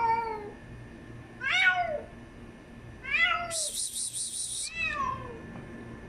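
A stranded kitten meowing repeatedly from a rooftop, four plaintive calls a second or so apart, from a cat that cannot get down. About two-thirds of the way through there is a short, high, rapidly pulsing rattle.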